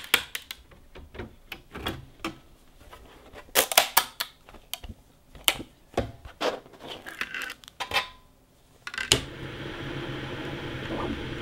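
Irregular clicks and clacks of small hard objects being handled and knocked together. About nine seconds in, a steady machine hum takes over.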